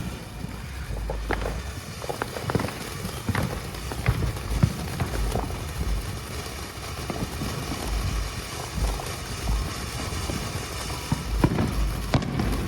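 World Class Fireworks Star Chaser fountain burning: a steady hiss of spray with scattered, irregular sharp pops and crackles.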